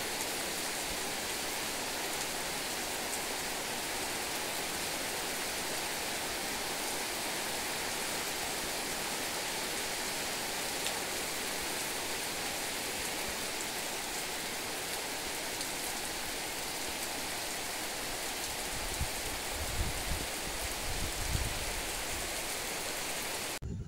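Steady heavy rain falling on ground, puddles and garden foliage: an even, unbroken hiss. Some low rumbles come in near the end.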